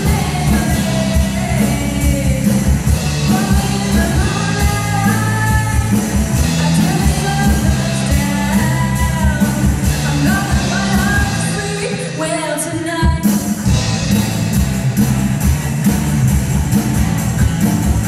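Live rock band: a singer's voice over electric guitar and a drum kit. About twelve seconds in the drums and low end drop out for about a second, then the full band comes back in and plays on without the voice.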